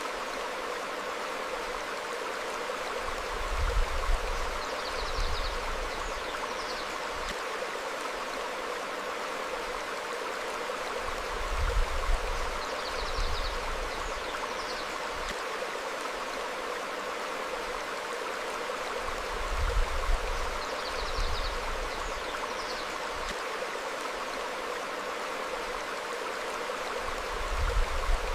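Stream flowing over rocks, a steady rushing babble. A low rumble swells up about every eight seconds, and faint high bird chirps come in pairs around each swell.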